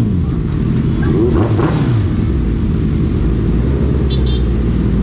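Suzuki Hayabusa Gen3's inline-four running through an Ixil aftermarket exhaust while riding, a steady low exhaust note whose pitch dips and rises again in the first two seconds.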